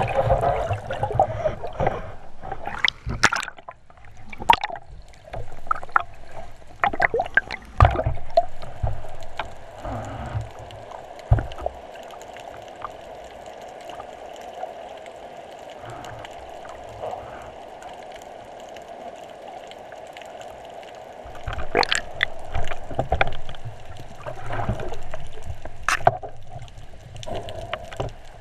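Water sloshing and bubbling against an underwater camera on a speargun, heard underwater, with scattered sharp clicks and knocks for the first ten seconds or so and again a little after twenty seconds; in between, a steadier watery hiss.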